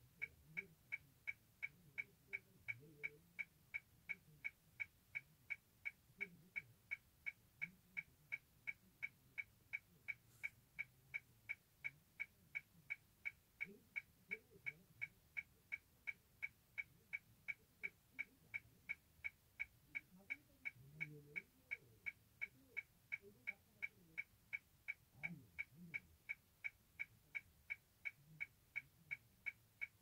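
A car's indicator flasher ticking in the cabin of a stopped car: an even, mechanical tick about two and a half times a second. Faint low sounds come and go underneath.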